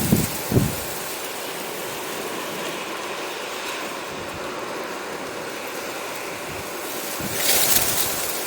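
Sea surf washing on the shore as a steady hiss, with one wave swelling louder and breaking near the end. A few low wind thumps on the microphone in the first second.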